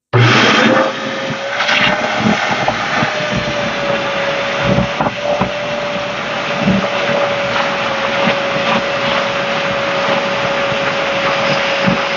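Wet/dry shop vacuum switched on, its motor spinning up within a second to a steady whine, sucking water out of a sump pit through its hose, with a few irregular louder surges.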